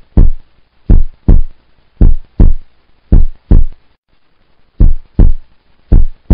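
Heartbeat sound effect: deep paired thumps, lub-dub, repeating about once a second, with one longer pause about two thirds of the way through.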